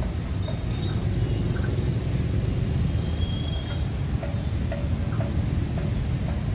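Steady low rumble of passing vehicles, with faint short high notes over it from about four seconds in.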